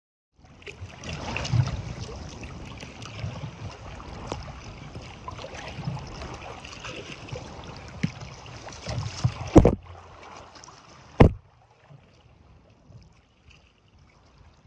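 Choppy, wind-blown lake water splashing and slapping against the hull of a Dagger Stratos touring kayak under way. Two loud thumps come about a second and a half apart, after which the splashing turns quieter.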